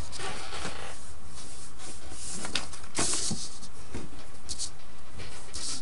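Short scratchy strokes of writing on a surface, a few at a time, over a steady low hum.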